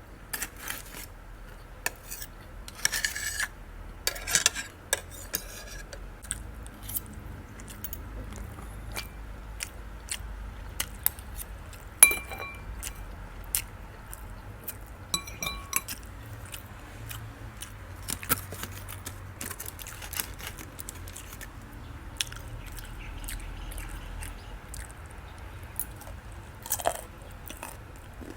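Close-up eating sounds: chewing and biting oat-crusted baked chicken breast and egg, with scattered clicks and a few ringing clinks of cutlery against a plate.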